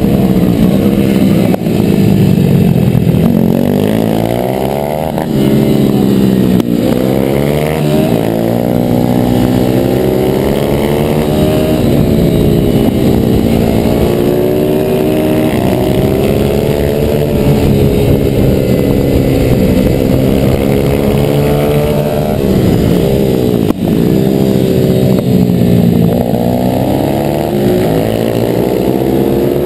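Single-cylinder four-stroke YX 140 pit bike engine ridden hard, heard close up from on the bike: the revs climb and fall again and again, with short dips where the throttle is shut and gears are changed.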